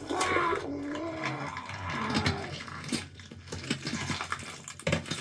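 Layered horror sound effect of something tearing its way out of a body. A pained, scream-like voice bends up and down in pitch over dense cracking and snapping clicks meant as bones cracking and flesh tearing, with an eerie tone mixed in.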